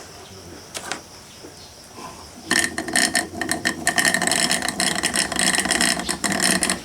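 Small magnetic-drive water transfer pump switched on about two and a half seconds in and running with a rapid mechanical rattle. It fails to pump water: its motor is meant to turn the impeller magnetically through the plastic housing.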